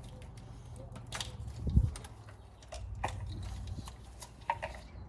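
Scattered clicks and knocks of hands and tools working the coil packs off a 2006 Mustang GT's V8, with one heavier thump a little under two seconds in, over a steady low hum.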